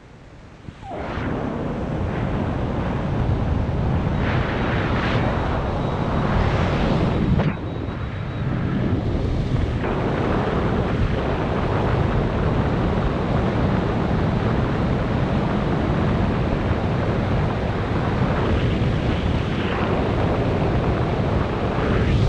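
Wind rushing and buffeting over a skydiver's camera microphone in the air, a dense steady roar that comes up about a second in.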